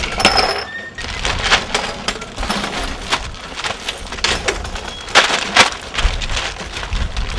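Plastic shopping bags crinkling and rustling as they are handled, in a run of irregular crackles.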